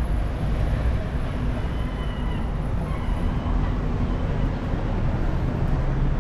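Street ambience: a steady low rumble of road traffic and vehicle engines, with a few faint high cries about two to three seconds in.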